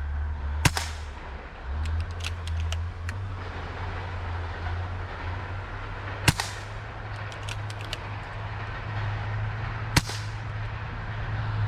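Three shots from an Umarex Notos PCP air rifle fired as a pistol: sharp cracks about five and a half seconds and then four seconds apart, with fainter clicks in between. A vehicle engine drones low and steady underneath.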